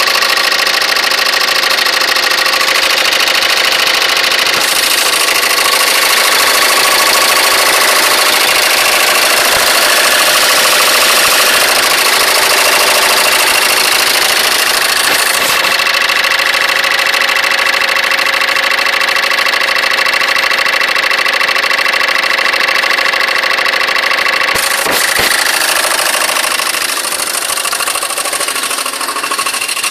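Citroën C3 engine running steadily at an even speed, recorded for its noise. A short click comes near the end, after which it runs slightly quieter.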